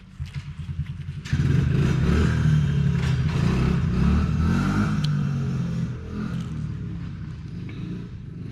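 A motor vehicle engine: a short run of rapid low pulses, then about a second in it runs loud with its pitch rising and falling, easing off in the last seconds.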